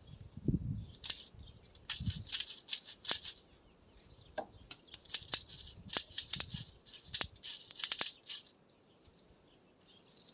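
CO2-powered airsoft 2011 pistol firing a string of shots, each a sharp snap with a brief gas hiss. The shots come in irregular clusters over about eight seconds.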